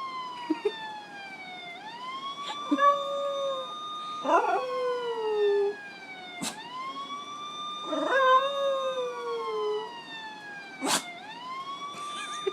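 Recorded police siren wail played through a phone speaker, rising, holding and falling about every four and a half seconds. A dog howls along to it in long wavering howls, in two bouts, one about three seconds in and one about eight seconds in. A couple of sharp clicks come at the bottom of the siren's falls.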